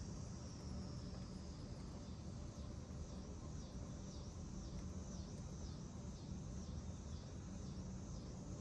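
Insects chirring in a high, evenly pulsing drone, a little under two pulses a second, over a faint steady low rumble.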